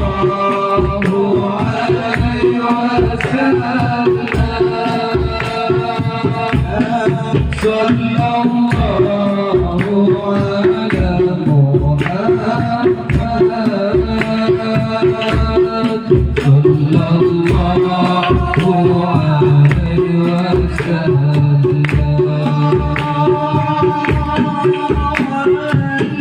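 Sholawat, an Islamic devotional song, sung to a steady beat of hand drums, about two strokes a second.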